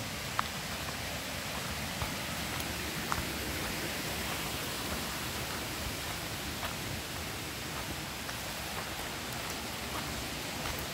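Steady, even hiss of forest ambience, with a few faint ticks of footsteps on a dirt trail.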